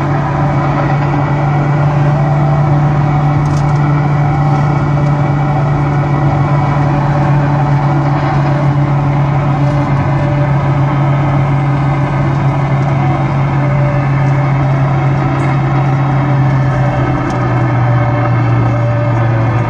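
Car AM radio hissing with static and a few faint crackles, the crackles coming from lightning discharges. Under it is a steady low drone that drops slightly in pitch about seventeen seconds in.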